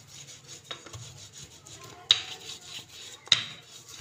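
Wooden rolling pin rolling back and forth over layered dough, a soft rubbing scrape, with sharp knocks about two and three seconds in as the pin strikes the work surface.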